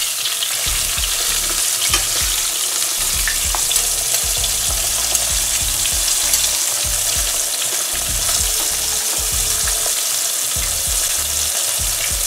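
Floured Bangamary fish fillet sizzling steadily in hot vegetable oil, with a few light clicks of metal spoons against the pan as the fillet is turned.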